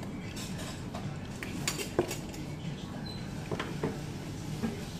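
Chopsticks clicking against a rice bowl: a handful of short, sharp clicks, the loudest about two seconds in, over a steady low background hum.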